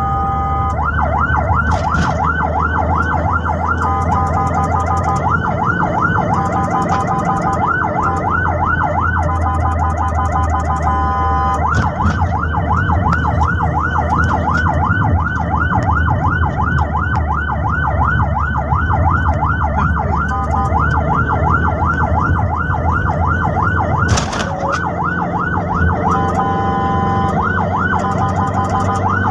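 Ambulance's electronic siren heard from inside the vehicle, switching back and forth between a fast yelp of about four rising-and-falling sweeps a second and a steady held tone, over engine and road rumble.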